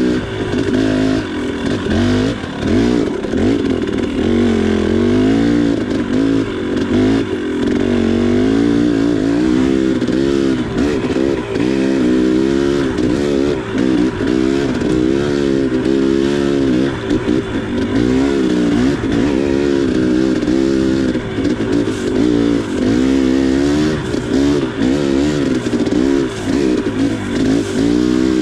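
KTM 300 XC two-stroke single-cylinder dirt bike engine under way, its revs rising and falling about once a second as the throttle is worked on and off along the trail.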